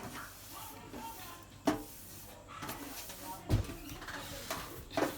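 Three sharp knocks, about a second and a half apart, over faint rustling.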